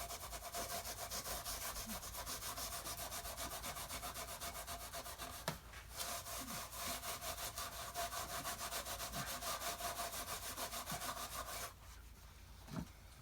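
Wax being rubbed hard into the bare wood of an old wooden toolbox, in quick, even back-and-forth strokes of about five a second. The strokes pause briefly about halfway through and stop near the end.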